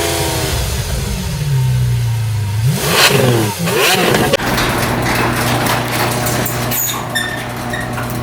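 Turbocharged 4G63T four-cylinder car engine blipped twice about three seconds in, the revs rising and falling back, then settling into a steady idle.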